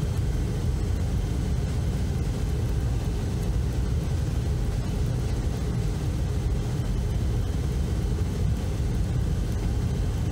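Steady low background rumble at an even level, with no distinct knocks or clicks.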